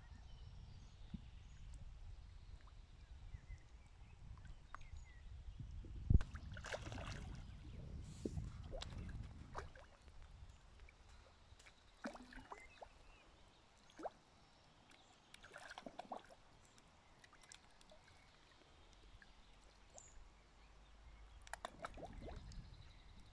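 Large fish splashing and slurping at the water surface as they take floating bread, in several irregular bursts over a low rumble. A sharp thump about six seconds in is the loudest sound.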